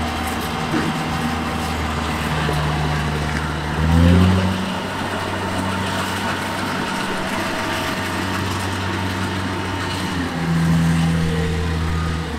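Farm machine's diesel engine running steadily, revving up briefly about four seconds in and working harder again near the end.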